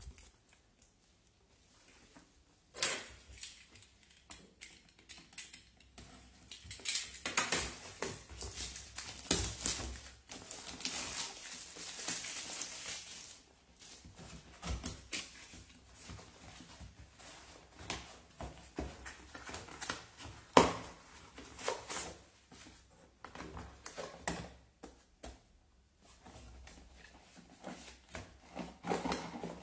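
Cardboard packaging being handled and opened: irregular sliding, rustling and tapping of the box, with a stretch of steady rubbing as a part slides out, and one sharp knock about two-thirds of the way through.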